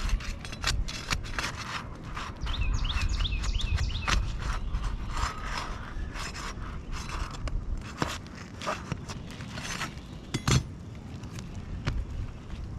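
Scraping and clicking of tools working under roof shingles to free the nails still holding them, with a sharper knock about ten and a half seconds in.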